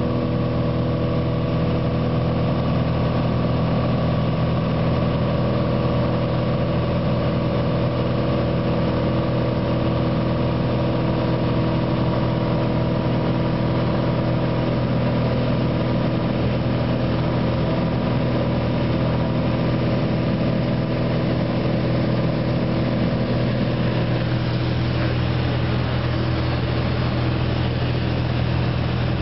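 Steady drone of a light aircraft's engine and propeller heard from inside the cabin. Its tone shifts a little near the end.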